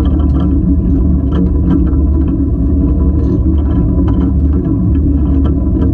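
Running gear of the steam locomotive Spreewald rolling along the track, heard up close at the wheels: a loud, steady low rumble with irregular metallic clicks and knocks from the wheels and rods.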